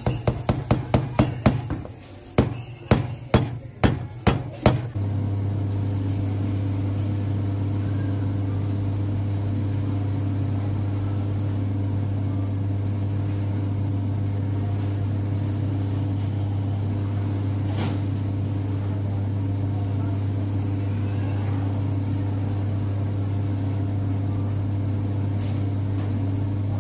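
Hammer tapping buttress nails into a leather heel block: quick strikes, about four a second, in two runs with a short pause between. From about five seconds in, a shoe finishing machine runs with a steady hum as the shoe is held to its buffing wheels.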